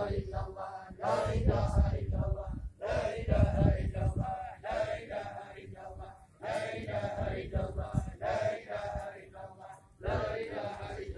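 A large group of men and women chanting a Sufi dhikr together, repeating "Allah" in rhythmic sung phrases of a second or two with short breaks between them.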